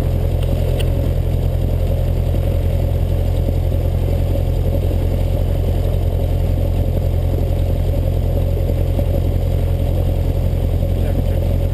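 Cessna 172's piston engine and propeller running steadily at idle after start, heard from inside the cockpit.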